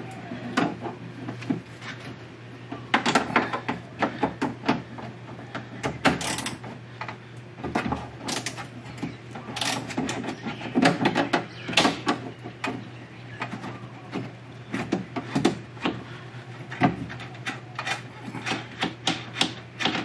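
Irregular metallic clicks and clunks of a hand tool at work inside a pickup's door shell as the last 10 mm bolt of the door handle is loosened, over a steady low hum.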